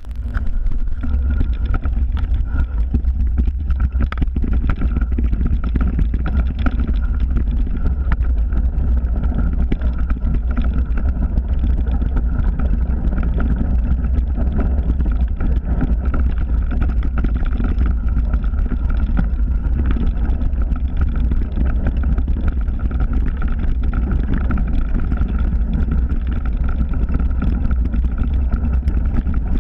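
Steady rumble and wind buffeting on an action camera's microphone while riding a mountain bike down a snowy forest trail.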